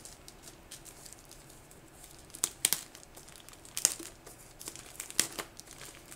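Keyboard packaging crinkling and rustling as the keyboard is unwrapped from its box, with several sharp crackles between quieter handling.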